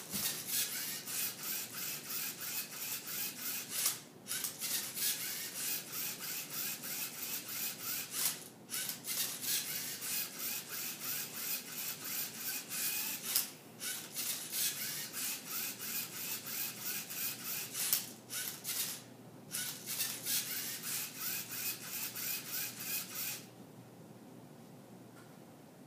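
LEGO Mindstorms MindCuber robot's motors, plastic gears and turntable whirring and scraping in short pulses, about two a second, as it turns and flips the Rubik's Cube to scan its faces. The pulses break off for a moment every four to five seconds and stop about 23 seconds in.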